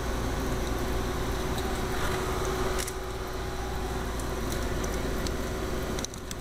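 Steady low machine hum with a faint constant tone, and a few faint clicks of wire being handled; the hum drops away near the end.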